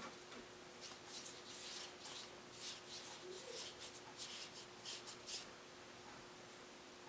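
A round watercolor brush working blue paint, from the pan set and across watercolor paper, in a series of short, soft, scratchy strokes. It is faint, and the strokes die away about five and a half seconds in.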